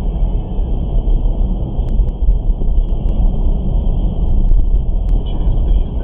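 Low, steady road and engine rumble inside the cabin of a SAAB 9-4X driving on a wet city road, picked up by a windscreen-mounted dashcam, with a few faint ticks.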